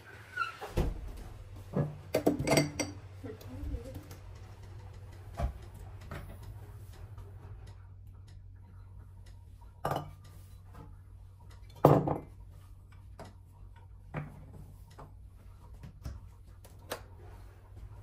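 Glassware and a plastic milk bottle handled and set down on a kitchen countertop: a string of separate knocks and clinks, some briefly ringing, the loudest about twelve seconds in, over a steady low hum.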